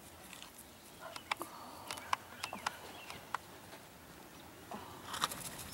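Quiet pasture ambience: scattered sharp clicks and a few faint, short bird chirps, bunched together about a second in and again near the end.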